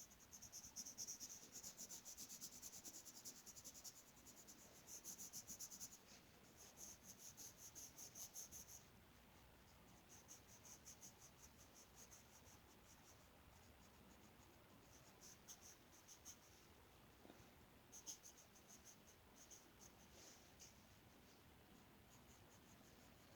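Faint colouring strokes on paper: quick back-and-forth scratching, several strokes a second, which eases after about nine seconds into fainter, scattered runs of strokes.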